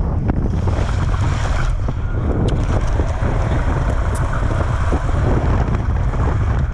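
Heavy wind buffeting an action camera's microphone as a BMX bike races along the track at speed, a steady low rumble with a few brief knocks from the bike and track.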